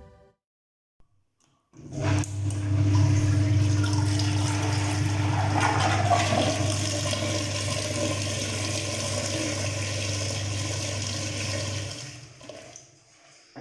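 Beko wringer washing machine starting its wash: the motor comes on with a steady low hum and churns the water and laundry in the tub with a loud sloshing rush. It runs for about ten seconds and then cuts off, leaving a few faint knocks.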